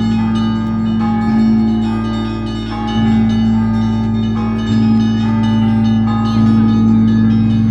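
Russian Orthodox church bells being rung by bell ringers. A deep large bell is struck about every 1.7 seconds, four times, and each stroke hums on under a running pattern of smaller, higher bells.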